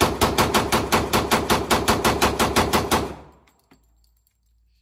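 Glock 27 Gen 4 .40-caliber subcompact pistol fired in a rapid string of single shots, about five or six a second, emptying an extended 22-round magazine. The shooting stops about three seconds in.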